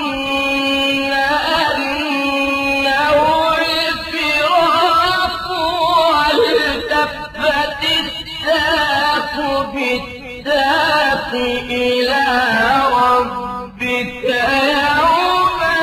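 A single voice reciting the Quran in melodic tajweed style, holding long notes with a wavering, ornamented pitch, with two short breaks.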